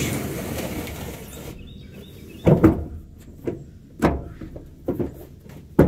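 Heavy, thick rubber pickup bed mat scraping as it is pushed across a wet truck-bed floor, then a series of dull thumps as it flops down flat and is pressed into place.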